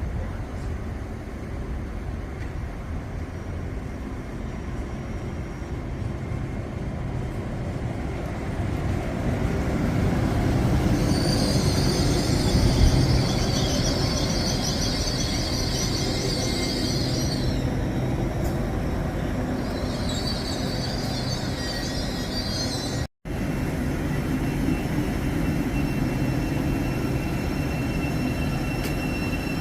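A train rumbling through the station, louder and closer about twelve seconds in. A high-pitched squeal joins the rumble for about six seconds and comes back for a few seconds later on. The sound cuts out for an instant about two-thirds of the way through.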